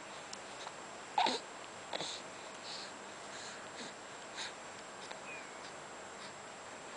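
A pet animal making a string of short, faint noises. The loudest is a brief call that falls in pitch about a second in, followed by smaller snuffly sounds.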